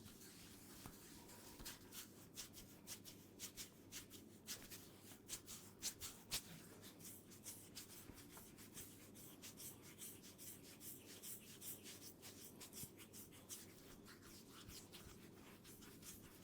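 Hands rubbing a person's hair and scalp in a head massage: a faint, irregular crackling rustle of many short scratches.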